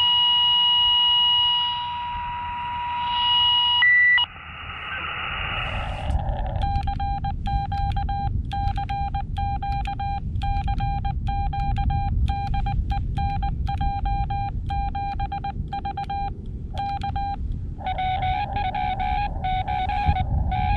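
Receiver audio from a Xiegu X6100 HF transceiver: for about the first four seconds a steady, unbroken tone, a birdie (a spurious carrier) that just keeps going, then band hiss. From about six seconds in, the radio's sidetone keys Morse code, a CQ call, in even dots and dashes. Near the end another station answers in Morse code at a slightly different pitch.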